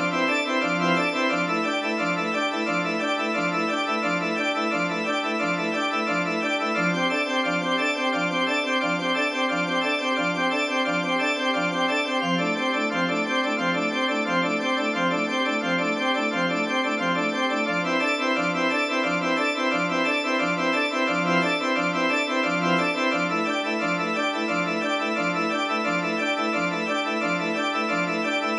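Sampled pipe organ, main manual keyboard without pedals, playing repeating arpeggio patterns in a steady pulse of notes. The chord shifts every five to six seconds.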